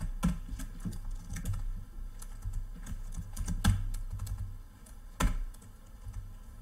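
Typing on a computer keyboard: irregular key clicks, with a few harder keystrokes standing out, two of them notably loud in the second half.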